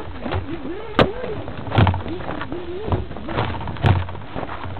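Small nitro engine of a radio-controlled buggy revving up and down about twice a second, with several sharp knocks and thumps as the buggy bounces over rough ground.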